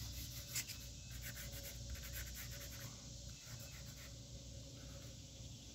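Faint rubbing and light scratching of a fingertip spreading petroleum jelly over a painted steel truck door, with a few soft ticks, most of them in the first second or so.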